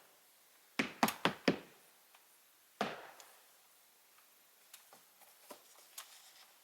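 A hand tool striking wood: four quick blows in a row, then a single blow, followed by faint light taps.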